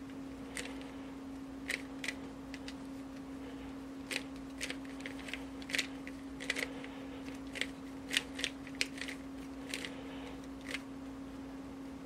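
GuoGuan YueXiao 3x3 speedcube being turned by hand: irregular plastic clicks and clacks as its layers turn and snap into place, coming in quick clusters, thickest in the middle, over a steady low hum.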